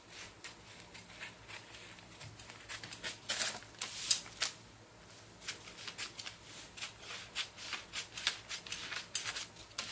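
Large tailor's shears snipping through brown kraft paper in a run of short cuts, with the paper crackling as it is handled. The snips start about three seconds in, after a quiet opening.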